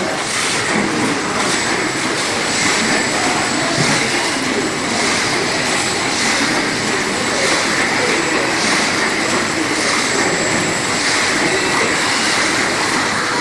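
OPTIMA-1700DS automatic flatbed die cutting machine running in production, a loud, steady mechanical noise with a faint regular beat.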